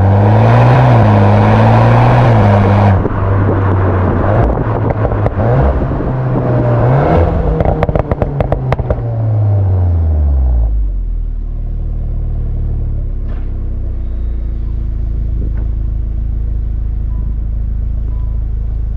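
VW Golf 8 R's turbocharged 2.0-litre four-cylinder heard through its Akrapovic exhaust in Race mode. The engine pulls hard for the first few seconds, then the throttle lifts and a run of pops and crackles comes on the overrun as the revs fall. About eleven seconds in it settles to a steady low drone.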